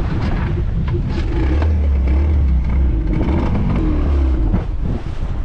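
Small boat's outboard motor running under way. It pulls harder about a second and a half in and eases off near the end.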